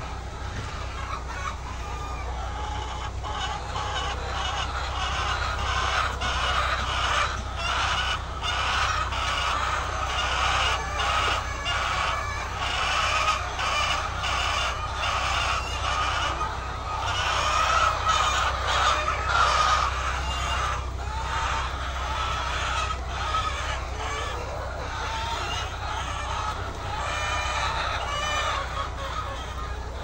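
A large flock of white laying hens calling all together, many overlapping voices with short clucks throughout, a little louder in the middle. A steady low hum runs underneath.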